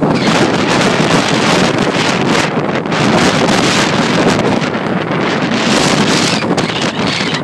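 Typhoon wind blowing hard in gusts, buffeting the microphone with a loud, continuous noise that swells and eases every few seconds.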